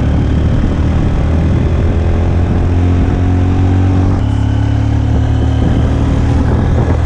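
Motor vehicle engine running steadily close to the microphone, its pitch shifting to a new steady level about four seconds in.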